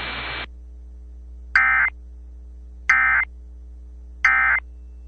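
Emergency Alert System end-of-message data bursts heard over FM radio: three short, identical warbling digital bursts about 1.3 seconds apart, marking the end of the alert. A steady hum runs underneath, and a background hiss cuts off about half a second in.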